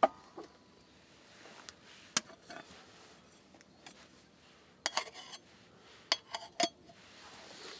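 Cookware being handled while cooking breakfast: a series of sharp clinks and knocks, the first and loudest with a short ring, then scattered taps and a quick cluster of clinks about five seconds in.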